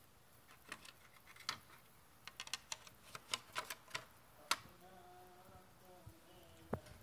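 Irregular sharp clicks and light knocks of plastic and sheet-metal parts as the opened print unit of a Fujifilm ASK-300 dye-sublimation photo printer is handled by hand, coming thickest in the middle, the loudest about four and a half seconds in.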